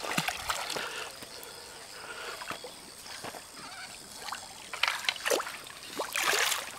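Hooked carp splashing at the surface of shallow river water as a landing net is pushed through the water toward it, with a louder splash about six seconds in.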